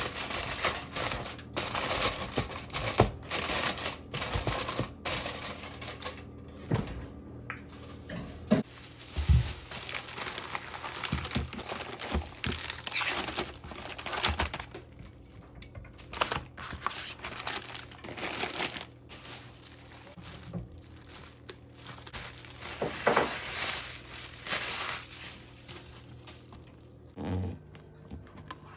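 Irregular crinkling and clicking handling noises: many short rustles and clicks, with a quieter stretch near the end.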